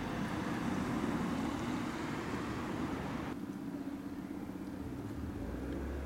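Steady hum of road traffic, with its higher hiss falling away abruptly about three seconds in and a low rumble rising near the end.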